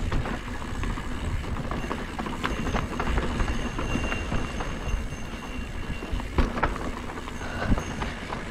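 Mountain bike rolling fast over a dirt singletrack: knobby tyres crunching on the packed dirt, with a continual clatter of the frame, chain and components over bumps, and wind rumbling on the helmet camera's microphone.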